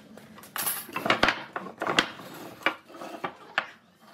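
Hard wooden pieces knocking and clattering as they are handled and set down on a wooden workbench: a run of irregular sharp knocks, about seven, the loudest a bit over a second in and at two seconds.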